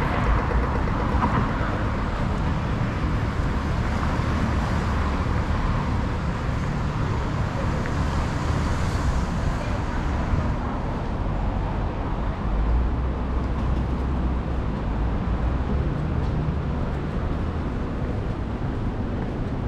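City street ambience: a steady wash of road traffic noise with a low rumble of passing vehicles.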